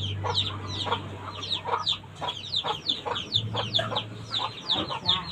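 Chickens clucking, with a rapid run of high, falling chirps. A low hum sounds underneath, stops about two seconds in and returns briefly.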